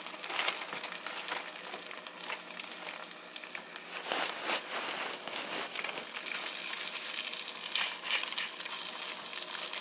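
Walleye fillets sizzling in hot melted butter in a small frying pan, a steady hiss full of fine crackles and pops. It gets busier and a little louder about six seconds in, as more fillets are laid in.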